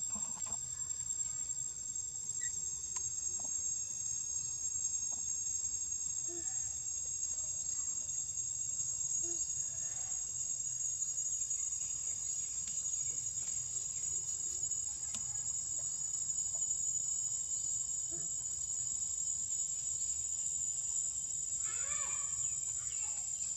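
Steady high-pitched insect drone, unbroken, with scattered faint chirps. A few short calls come near the end.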